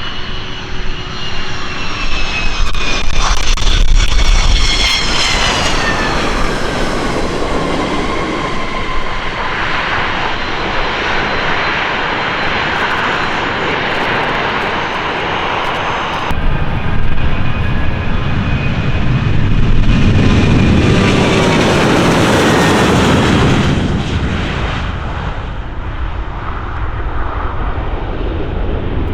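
Jet airliner engines at takeoff power passing close by, their high fan whine sliding down in pitch as the aircraft goes past. About 16 seconds in the sound changes abruptly to a second loud jet that swells to a peak and then eases off.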